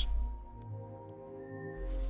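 Soft ambient background music: sustained synth pad chords over a low bass.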